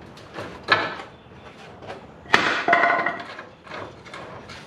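Metal clanks from steel tools and suspension hardware being worked under the truck: a sharp knock under a second in, then a louder clank about two seconds in that rings briefly.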